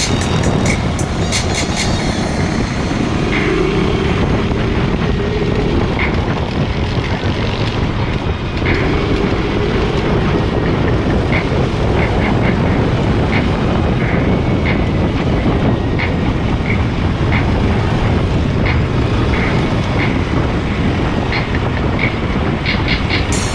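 Yerf-Dog go-kart's 390 cc Honda single-cylinder engine running steadily at speed over a dirt track, with dense rough noise and scattered light clicks and rattles.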